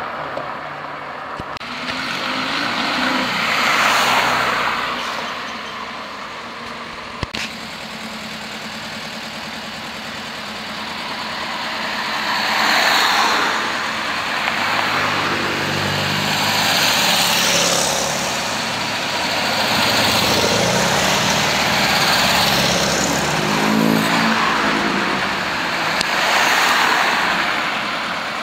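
Cars driving past one after another, each engine and its tyre noise swelling and fading as it passes. Around three-quarters of the way through, one engine's note stands out clearly. There is a single sharp click about seven seconds in.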